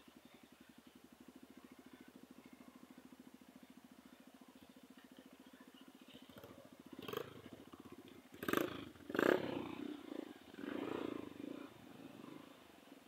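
Trail motorcycle engine idling with a fast, even pulse, then several louder bursts of engine noise in the second half.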